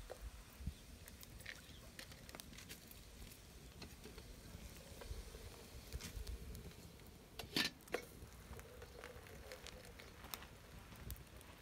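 Scattered light clicks and taps as a soot-blackened kettle is lifted from a wood fire with a cloth, with a sharper double clink a little past halfway.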